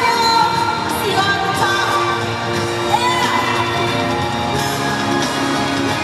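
Live pop/R&B music played loud over an arena sound system, with a singer's held and sliding notes and whoops from the crowd.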